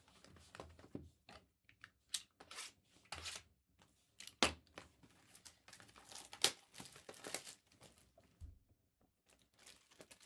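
Foil trading-card packs being torn open and their wrappers crinkled: a run of short, irregular scratchy tears and rustles, with the sharpest rips about four and six and a half seconds in.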